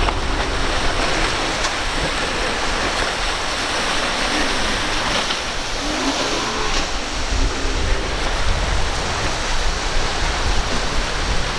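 Choppy surf and breaking waves washing steadily, with wind rumbling on the microphone.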